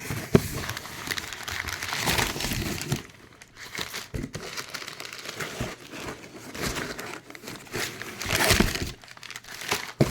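Packaging wrap crinkling and tearing as it is pulled open by hand, in uneven bursts that are loudest about two seconds in and again near the end.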